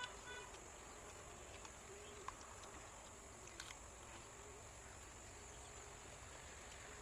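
Near silence: faint room tone with two or three faint short clicks.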